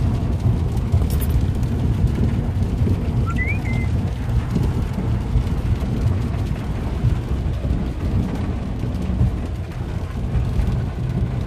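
Steady low rumble of a vehicle driving on a wet road, heard from inside the cabin, with a hiss of rain over it.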